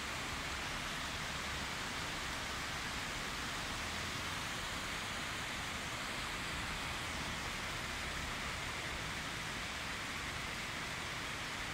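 Heavy rain pouring down onto paved ground and parked cars: a steady, even hiss with no break.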